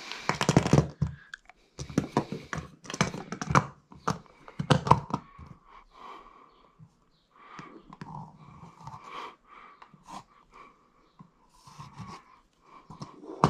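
Plastic ceiling rose and pendant knocked and shifted about on a whiteboard, with several short clicks and knocks. A marker pen then draws on the whiteboard in many short scratchy strokes.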